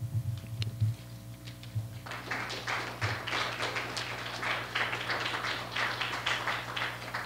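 Audience applauding, breaking out about two seconds in and carrying on steadily, after a few soft low thumps at the start.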